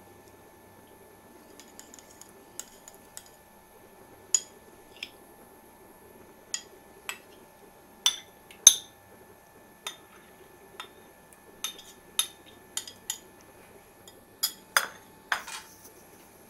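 A metal spoon clinking and scraping against a ceramic plate in irregular sharp taps as marinated chicken is scraped off it into a frying pan.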